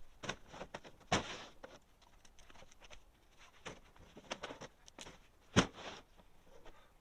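Scattered knocks and footsteps as green ash firewood rounds are handled and loaded into a pickup truck, with two heavier thuds, about a second in and a little over five seconds in, the second the loudest.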